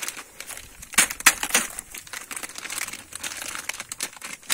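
A plastic packet of pasta crinkling in the hands as it is worked open, in irregular sharp rustles, loudest about a second in.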